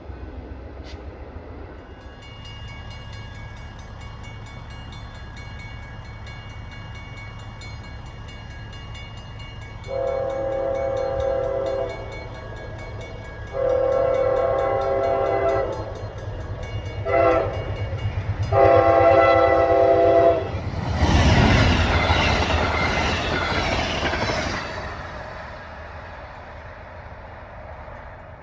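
Train approaching with its air horn sounding a chord in four blasts, long, long, short, long: the grade-crossing signal. The train then passes close by with a loud rush of wheels and engine that fades away near the end.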